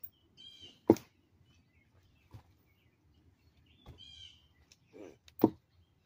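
Arm strikes against a thin, knotty tree trunk in conditioning practice: two sharp thuds about four and a half seconds apart, the second the loudest, with fainter knocks between them. A bird chirps twice.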